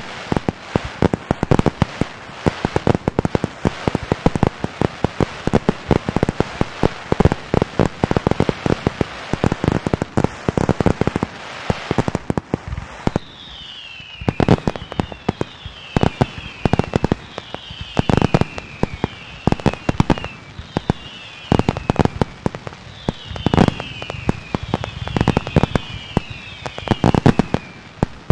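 New Year's fireworks going off in a dense, rapid run of bangs and cracks, thinning out after about twelve seconds. From then on, high whistles that fall in pitch sound again and again between the bangs.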